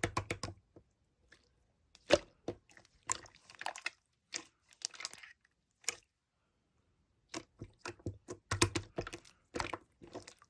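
Slime being squeezed and poked by hand, making bursts of sticky clicks, pops and crackles, with a pause of about a second and a half partway through.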